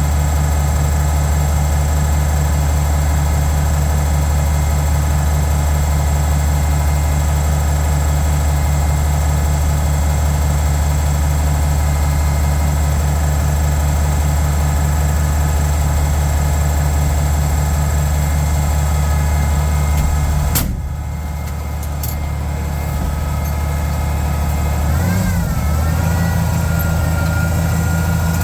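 Oliver 1650 tractor engine running steadily. About two-thirds of the way through its note suddenly drops with a sharp click and a second click follows. The engine then rises briefly, wavers and settles into steady running at a different speed.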